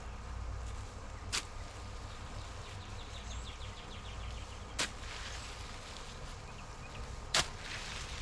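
A garden fork digging into and turning over wet leaf litter and compost bedding, with three sharp clicks or knocks a few seconds apart, the last the loudest.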